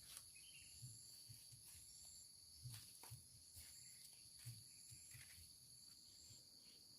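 Near silence with a faint, steady high-pitched insect drone and a few soft knocks.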